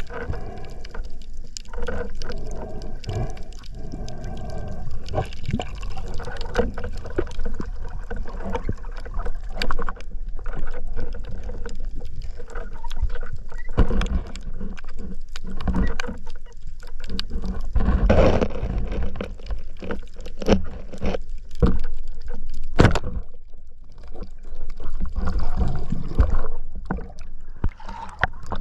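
Underwater sound picked up by a camera during a free dive: a muffled low rush and gurgle of water, scattered with irregular clicks and a few louder knocks.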